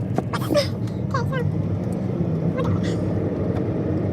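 Car engine and road noise heard from inside the cabin, a steady low hum, with faint voice-like sounds in the first half.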